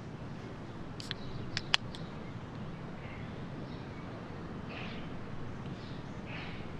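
Quiet open-country ambience: a steady low background hiss, with a few short sharp high sounds about one to two seconds in and faint bird calls.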